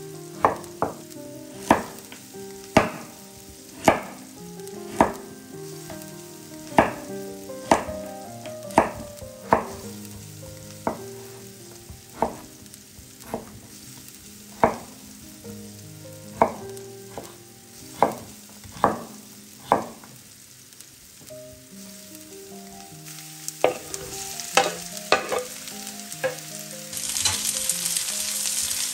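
Vegetables frying in oil in a pan, stirred with a utensil that knocks against the pan about once a second. About 27 seconds in, a much louder sizzle sets in as more food hits the hot oil.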